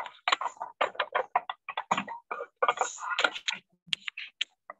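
Rapid, irregular clicking and tapping, several clicks a second, broken by short silent gaps.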